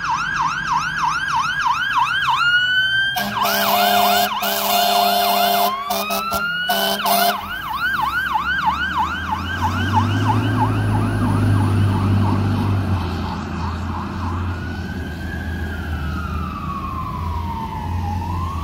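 Fire engine siren on a fast yelp, broken about three seconds in by several blasts of air horns. The yelp then returns while the truck's engine rumbles past, and near the end the siren turns to a slow wail.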